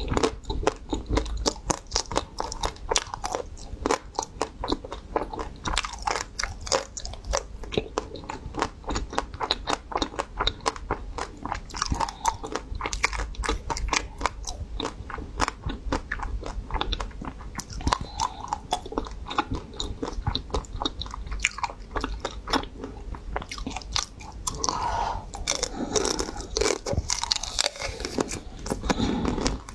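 Close-miked crunching and chewing of a pink-coated ice cream bar, a dense run of crisp cracks as the coating breaks between the teeth. Near the end the cracks thin out into smoother mouth noise as the last bite comes off the stick.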